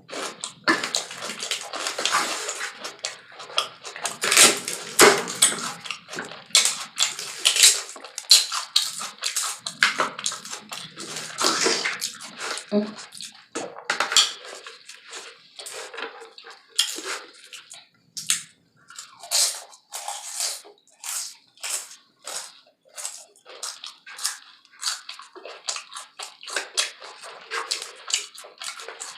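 Close-miked eating of a taco salad: irregular chewing with wet mouth sounds and crisp crunches, one after another.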